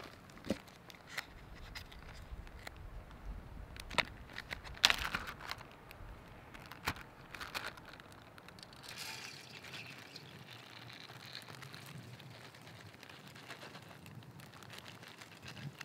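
Plastic zip-lock bag crinkling and its seal being pulled open, with scattered sharp clicks and crackles. About nine seconds in this gives way to a soft, steady rush as the soaked rice and its water slide out of the bag into an aluminium mess tin.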